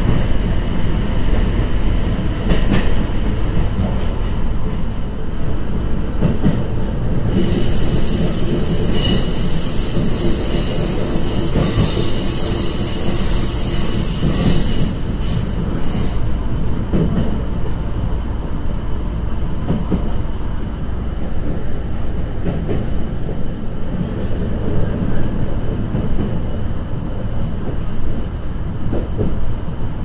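Inside a KiHa E120 diesel railcar on the move: steady engine and rail rumble. A high-pitched squeal with several steady tones joins in from about seven to fifteen seconds in.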